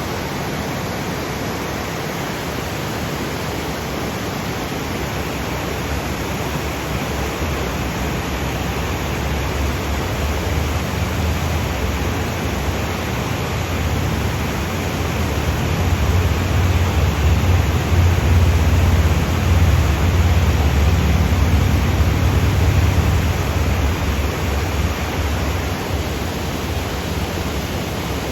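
Waterfall cascading over granite boulders: a steady, dense rush of falling water, with a low rumble that swells through the middle and eases off near the end.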